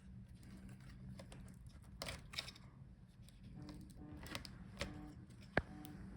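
Faint handling noises from hands working inside an open laptop while its cables are disconnected: light scrapes and small clicks, with a sharp single click about five and a half seconds in.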